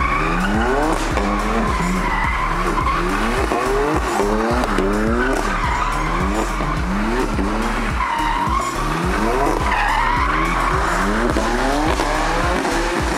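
BMW M3 F80, tuned to 580 hp, driven hard: its twin-turbo straight-six revs up again and again in quick rising sweeps, with tyres squealing.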